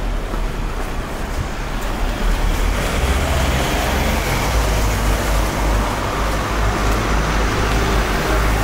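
Road traffic noise: a steady low rumble and hiss of passing vehicles, swelling a little about two seconds in.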